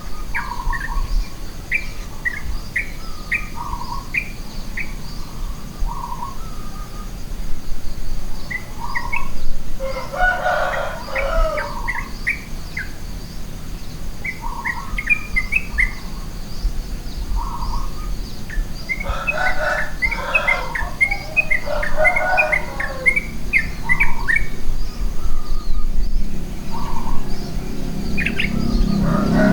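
Several wild birds singing in a morning dawn chorus: series of short repeated chirps and whistled notes, with louder, denser bursts of song about ten seconds in and again around twenty seconds in.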